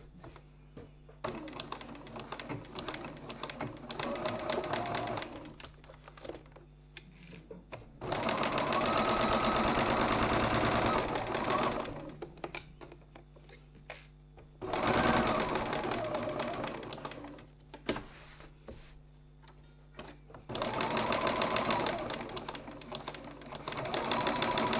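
Domestic sewing machine stitching a seam in four runs, with short pauses between. Each run is a fast, even patter of needle strokes under a motor whine that rises as the machine speeds up and falls as it stops.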